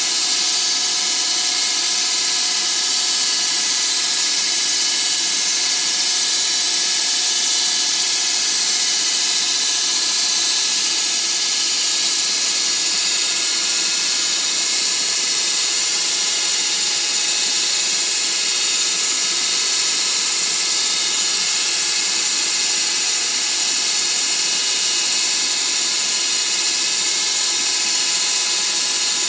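Grizzly G0602 bench lathe, converted to CNC, running under power while a carbide insert turns a 30-degree point on bar stock. The sound is a steady high hiss from the cut, with several steady machine tones underneath.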